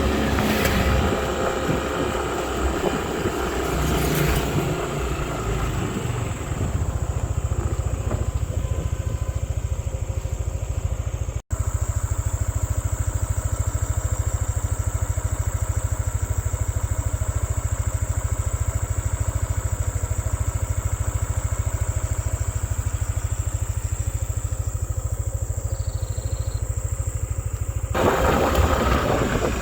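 Motorcycle engine running steadily while riding, a constant low drone with an even pulse, cut by a brief dropout about a third of the way in.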